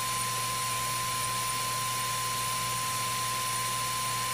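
Cetus3D 3D printer powered on and idle: the steady whir of the extruder head's small cooling fan with a thin, steady high whine over a low hum.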